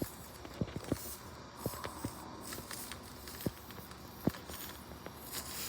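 Scattered light knocks and clicks, about ten in all, at uneven intervals.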